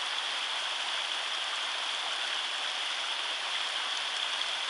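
Rushing water of a torrent: a steady, unbroken rush of white noise.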